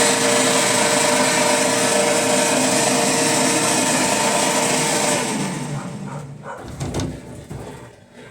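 Consul Facilite washing machine running with a loud, steady whirring hum, then winding down and fading about five seconds in, with a few knocks as it slows. This is the abnormal noise the owner is worried about.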